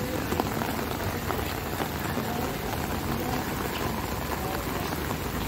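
Steady rain falling on a wet road and pavement.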